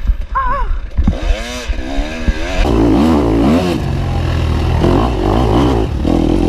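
Dirt bike engine revving hard, its pitch rising and falling again and again as the rider works the throttle over rough trail, with a steady low rumble beneath.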